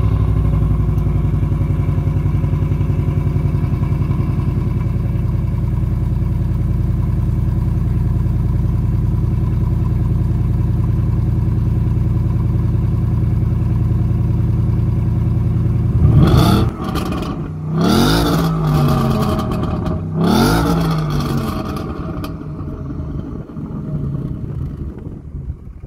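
Ford Mustang GT's 5.0-litre V8 through its stock exhaust, idling high and steady right after a cold start. It then blips twice, two short revs that rise and fall about two and a half seconds apart, and settles back to a quieter idle near the end.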